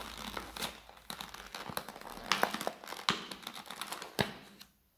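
Hard clear plastic lure case being twisted and pried at by hand, crinkling and crackling with scattered sharp clicks. The packaging is stubborn and resists opening. It goes quiet just before the end.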